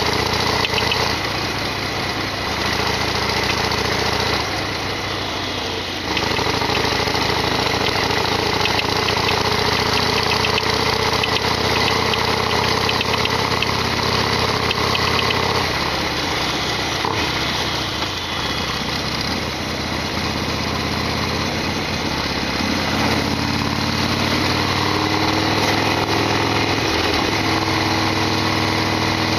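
Harley-Davidson Sportster XL1200R's air-cooled 1200 cc V-twin running while the motorcycle is ridden, its pitch shifting a few times in the second half, with a slow rise near the end.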